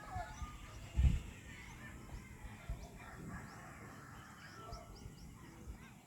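Birds chirping: a series of short, high, rising chirps, with a few whistled notes lower down. Low bumps on the microphone underneath, the loudest about a second in.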